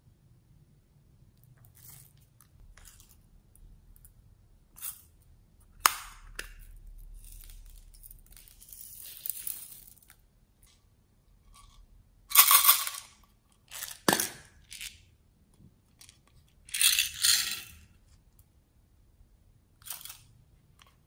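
Hands handling small plastic containers and tiny slime add-ins: scattered clicks and short rattles of small clay slices and beads, with a few sharp plastic clicks.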